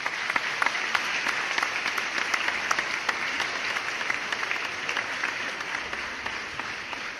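Audience applause: a crowd clapping hard, a dense patter of many hands. It starts suddenly and eases off slightly near the end.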